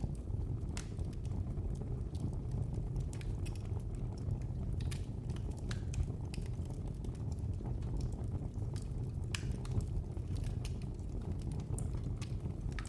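Wood fire crackling in a fireplace: a steady low rumble of the burning logs with irregular sharp pops and snaps scattered throughout.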